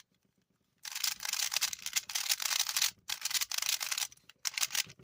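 Rubik's brand plastic cube being turned quickly by hand, its layers clacking and scraping in fast runs of turns. It starts after a short silence and breaks off briefly twice.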